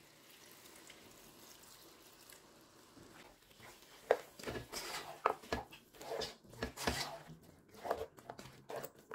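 Wooden spoon stirring and scraping thick curry masala around a stone-coated frying pan, with irregular knocks and scrapes starting about three and a half seconds in. Before that there is only a faint hiss as water is poured into the pan.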